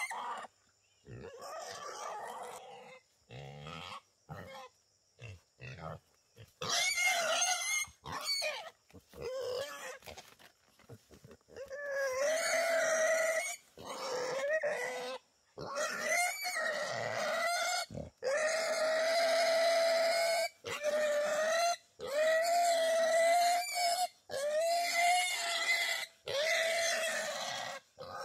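Wild boar squealing: short squeals and grunts in the first half, then long, loud squeals nearly back to back from about halfway through.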